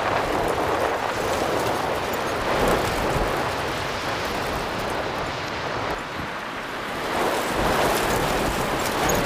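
Storm wind buffeting a phone microphone: a steady rushing noise that dips briefly about six seconds in.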